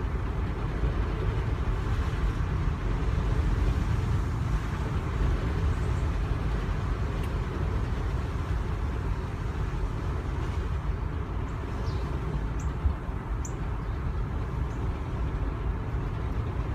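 Car driving slowly, with steady low engine and road rumble heard from inside the cabin. A few faint, short high chirps come through about two-thirds of the way in.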